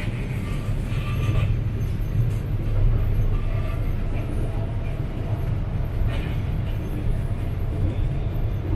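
Shanghai Metro Line 10 train running along an elevated viaduct, heard from inside the carriage as a steady low rumble.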